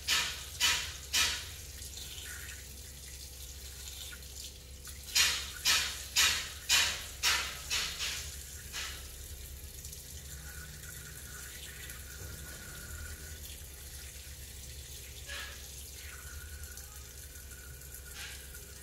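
Kitchen faucet running a thin stream into the sink, with two spells of quick swishing strokes about two a second, as a hand rubs a wet puppy's fur: one at the start and another from about five to nine seconds in.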